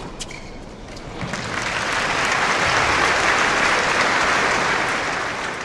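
Crowd applause that swells up from about a second in and fades away near the end.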